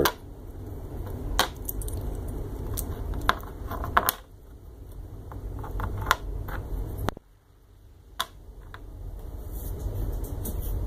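Small stepper motor driver boards with metal pin headers being set down one by one on a desk: a series of sharp light clicks and taps a second or two apart, over a low steady hum.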